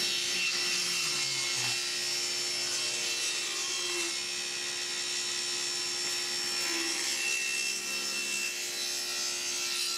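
SawStop table saw running with its blade cutting through a thin hickory runner strip, a shallow rip cut with the sacrificial push stick fed through the blade as well. The sound is a steady whine and hiss with no break.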